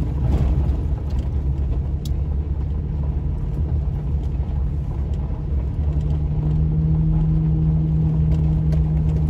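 Pickup truck's engine and tyres on a gravel road, heard from inside the cab: a steady low drone with road rumble, getting a little louder about six seconds in.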